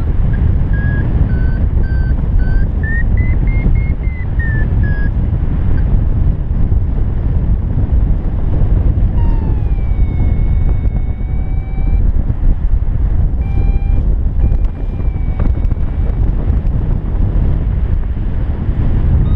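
Strong wind buffeting the camera microphone during a paraglider flight. Over it, a flight variometer beeps: broken beeps rising and then falling in pitch in the first five seconds, then about ten seconds in a tone that glides down and holds, with a few shorter tones after it.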